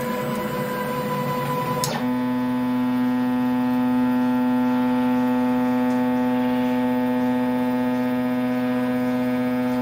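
Stepper motors of a MIDI CNC router driving an axis during homing: a steady electric whine. About two seconds in there is a click and the whine drops to a lower, steady pitch as the axis moves slowly at the home switch.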